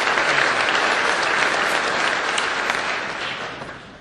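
Audience applauding, a dense clapping that dies away over the last second.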